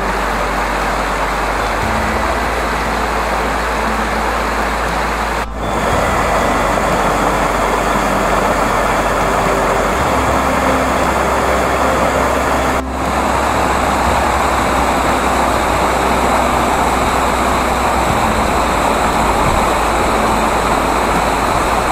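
Steady, loud rushing of a waterfall, broken twice by abrupt cuts where the level jumps.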